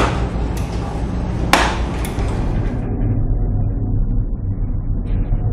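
Storm noise aboard a ship: a dense rush of wind and sea, broken by two sharp knocks in the first two seconds. About halfway through it gives way to a duller, lower rumble.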